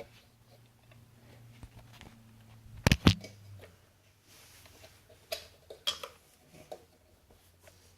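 Hard plastic parts of a ceiling fan's switch cup being handled and worked loose by hand: scattered clicks and knocks, the loudest a sharp double knock about three seconds in, over a faint low hum.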